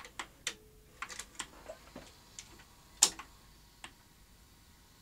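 Front-panel push buttons of a Panasonic AG-7350 SVHS video deck clicking as they are pressed one after another, about a dozen light clicks with the sharpest about three seconds in. A short low steady tone sounds about half a second in.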